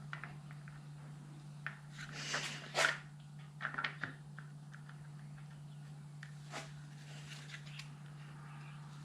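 Light clicks and short rustles of small parts being handled, a few louder ones about two to four seconds in, over a steady low hum.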